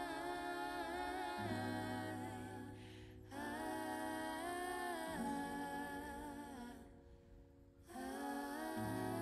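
Background music: a singer humming a wordless, wavering melody over sustained soft chords and bass, dropping away briefly about three seconds in and again around seven seconds.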